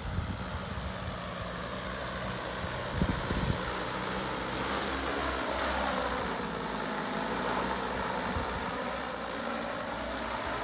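Multirotor agricultural spraying drone flying overhead, its propellers giving a steady drone whose pitch sags and rises again around the middle.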